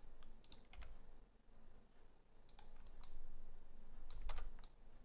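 Irregular clicks of a computer keyboard and mouse, a handful of separate keystrokes and button clicks spread over a few seconds.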